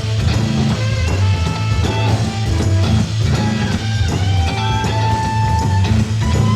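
Live rock band playing an instrumental jam: electric guitar lines over a steady bass and drum groove, with one note held for about a second and a half past the middle.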